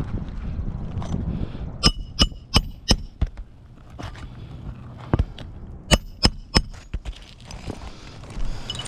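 Hard, sharp knocks with a brief metallic ring, in two quick runs of about four strikes each, a few seconds apart.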